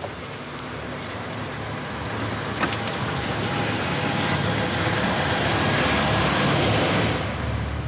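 A rushing, rumbling sound effect that swells steadily louder for about seven seconds, then drops away near the end.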